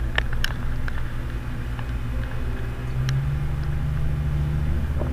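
Mountain bike rolling fast down a dirt trail, heard through the rider's camera: a steady rumble of tyres and wind, with a few sharp clicks in the first second and a low hum joining about three seconds in.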